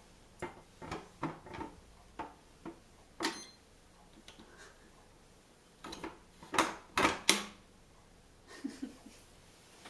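PetPorte smart cat flap clicking and knocking as a cat pushes out through it: a string of sharp plastic clicks, then the loudest clacks come in a cluster about two-thirds of the way through as the flap swings to and settles shut.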